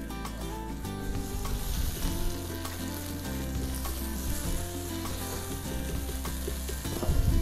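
Beaten egg sizzling in hot oil in an electric wok while a silicone spatula stirs and scrambles it, with light scraping strokes against the pan.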